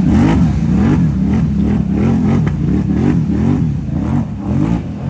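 Off-road side-by-side engine revving up and down over and over, about twice a second, as the throttle is pumped.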